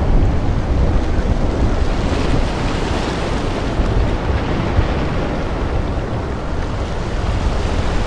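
Loud, steady rushing noise with a deep rumble, like wind or surf, used as the sound effect under an animated logo intro.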